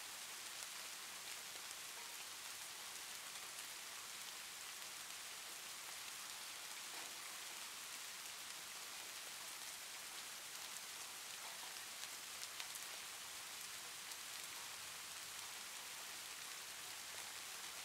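Steady, faint hiss, strongest in the upper range, with scattered faint ticks.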